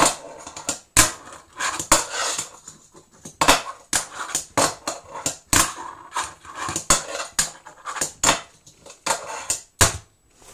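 Fingerboard tricks on a desktop: the board's deck and wheels clack sharply on the desk at an irregular pace, several times a second, as it is popped and landed, with the wheels rolling in between.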